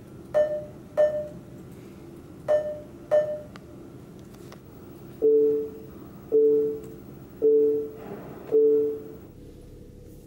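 Electronic in-car alert chimes of a Nissan Note: two pairs of short, bright pings, then about five seconds in four longer, lower two-tone chimes about a second apart, over a steady low hum.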